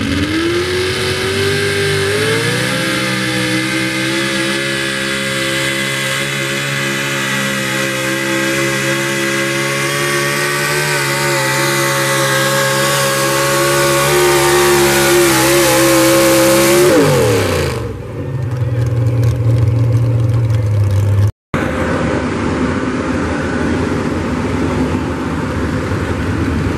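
Pickup truck engine at full throttle pulling a sled: its pitch climbs over the first few seconds, holds high and steady for about fourteen seconds, then drops quickly as the throttle comes off at the end of the pull. After that, a lower, steady engine sound from the next truck waiting at the line.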